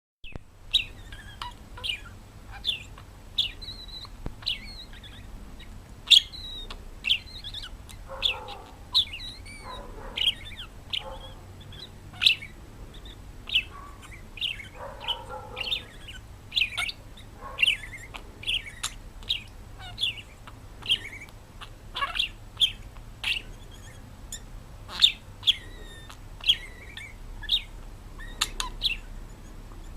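A bird chirping over and over in short, sharp chirps, about one or two a second. A few softer, lower rustling sounds come in about a third and a half of the way through.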